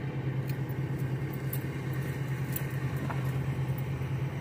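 Heavy diesel truck engine idling: a steady, even low hum.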